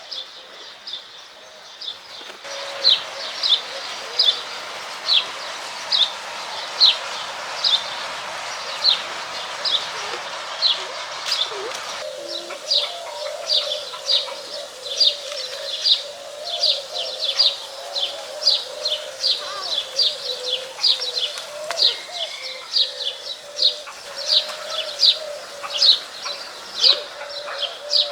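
A bird chirping over and over, short high chirps about twice a second. A steady hiss underlies the first part, and a steady low hum comes in about halfway through.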